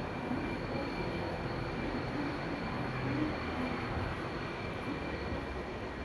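Steady background din with faint distant voices mixed in.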